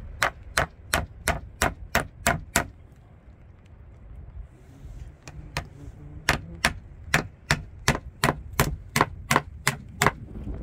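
Sharp, evenly spaced knocks at about three a second: a run of about nine, a pause of a few seconds, then a longer run of about a dozen.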